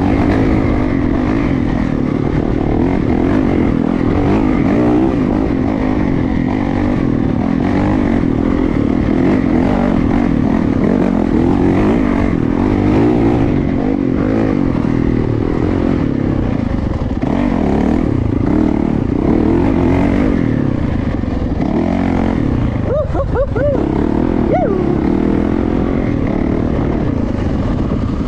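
Yamaha YZ450FX's 450 cc single-cylinder four-stroke engine running as the dirt bike is ridden along a wooded trail, held at a fairly even throttle with small rises and dips.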